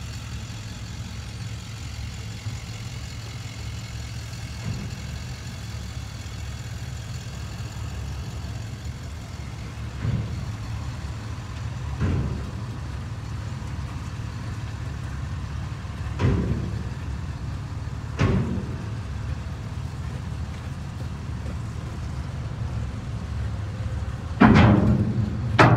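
Jeep Wrangler TJ rolling slowly at low engine revs, heard from inside the cab, with three pairs of thumps about two seconds apart as the tyres cross ramp joints. The last pair, near the end, is the loudest, as the Jeep rolls onto the ferry deck.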